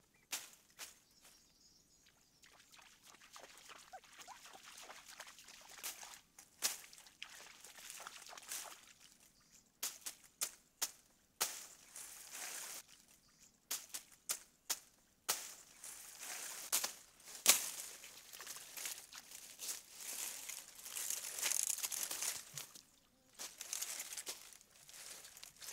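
Machete strokes hacking through tall grass stalks, irregular sharp cuts between stretches of rustling leaves. Water sloshes as the cutters wade in shallow pond water.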